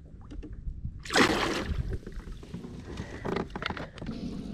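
A short splash of water about a second in as a bass is let go at the side of a fishing kayak, followed by a few light clicks and knocks from handling on the kayak.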